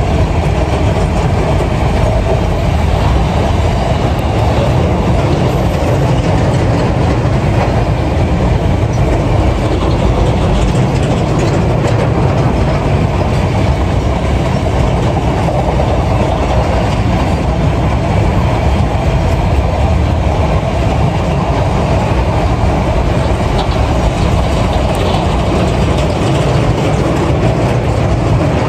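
Empty iron-ore gondola cars of a long freight train rolling past close by. The steel wheels run steadily on the rails, with clicking as they pass over the track.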